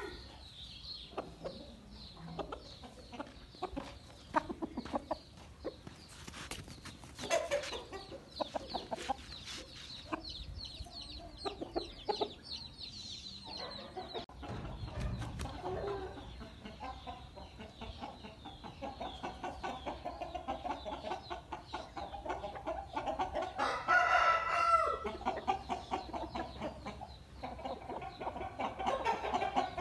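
Aseel chickens clucking and calling, with short sharp clicks scattered throughout. A louder, drawn-out call comes about three-quarters of the way through.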